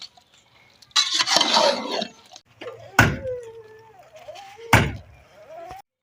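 Two heavy knocks of a utensil on a cooking pot, a little under two seconds apart, after a second-long rush of stirring or sizzling noise. A thin wavering squeak-like tone sounds between the knocks.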